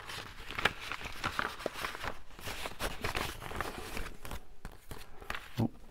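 Paper rustling, with irregular light clicks and taps, as a trimmed paper piece is handled and slid into a handmade envelope.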